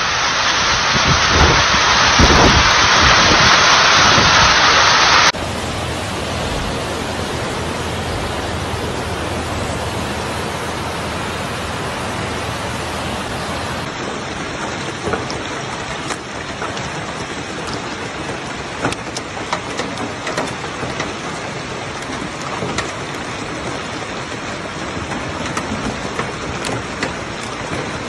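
Hailstorm: hail and rain falling steadily, with many small ticks of hailstones striking the ground and hard surfaces. The sound changes suddenly about five seconds in and again near halfway, and the first few seconds are the loudest.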